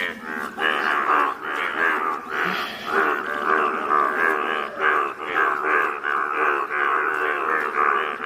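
Chorus of Indian bullfrogs croaking, many calls overlapping and repeating several times a second; the yellow males are giving their breeding calls.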